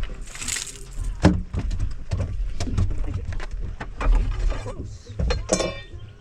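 Waves slapping and knocking against a bass boat's hull in rough water, with a hissing splash in the first second and a short high squeak near the end.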